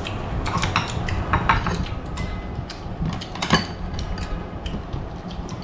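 Chopsticks and a metal spoon clinking and scraping against a ceramic bowl of noodle soup in scattered clicks, the loudest knock about three and a half seconds in, over a steady low hum.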